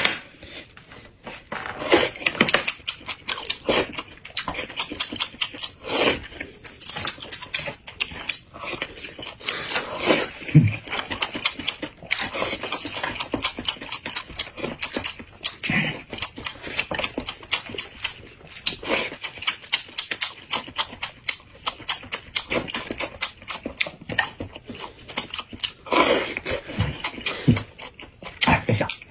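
Close-miked eating sounds: a man chewing and slurping slices of fish in broth and rice, with many quick wet mouth clicks and smacks.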